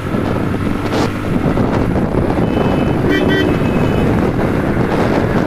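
Motorcycle engine running and wind noise buffeting the microphone while riding, with a brief horn toot about three seconds in.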